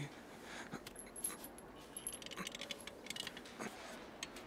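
Metal chain and handle of a hospital bed's overhead trapeze clinking and rattling in scattered light jingles as a man grabs it and pulls himself up.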